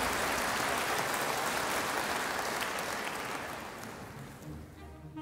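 Concert-hall audience applauding, the clapping dying away over the last second or two.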